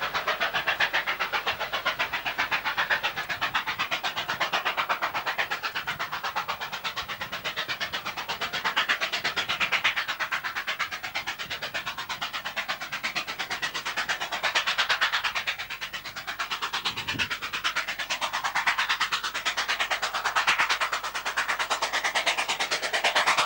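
Steam locomotive 3801, a New South Wales C38 class Pacific, working a passenger train towards the listener, its exhaust beating in a fast, even rhythm that swells and fades every few seconds.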